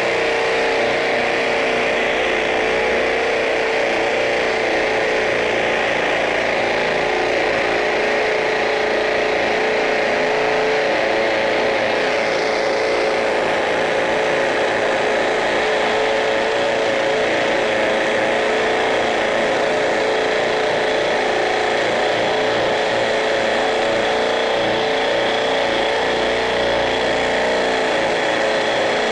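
Makita XPH14 cordless hammer drill in hammer mode on speed 2, boring a large masonry bit into a concrete block. It runs steadily under load with an even pitch.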